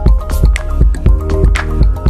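Background music with a steady beat, deep bass and pitched notes.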